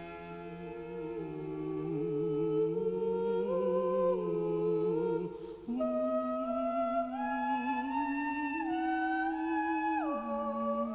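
Wordless voice humming a slow melody, holding each note with a slight waver; it steps up to a higher note about halfway through and drops back near the end.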